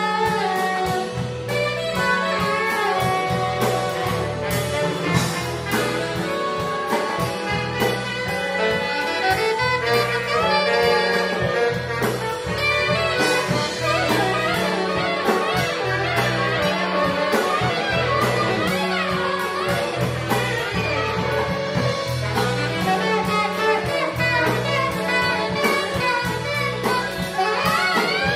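Live band playing: two saxophones carry the melody over electric guitars, bass and a drum kit, with quick saxophone runs through the middle.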